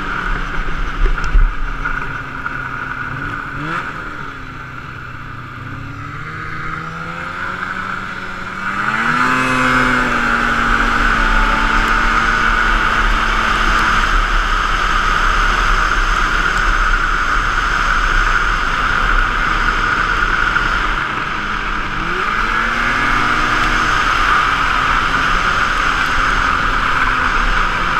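Polaris Indy snowmobile engine running under way: it eases off and quietens, then revs up with a rising whine about nine seconds in and holds a steady high-speed run. It dips briefly about three-quarters of the way through and picks up again.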